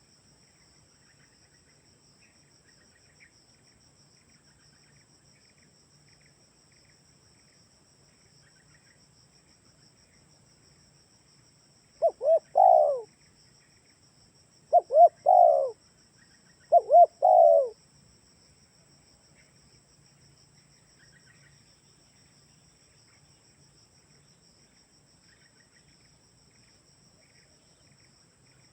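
Spotted dove (tekukur) cooing: one call of three short coo phrases in quick succession about twelve seconds in, each phrase two or three quick notes. Long silences lie either side of the call.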